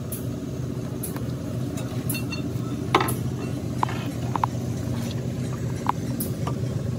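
An engine running steadily, with a few sharp metallic clinks of tools or parts, the loudest about three seconds in.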